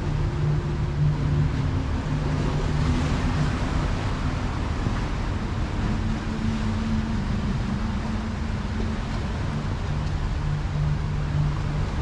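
Ocean waves washing and surging against a rocky shore, a steady rushing wash, with a low steady hum underneath that shifts in pitch a few times.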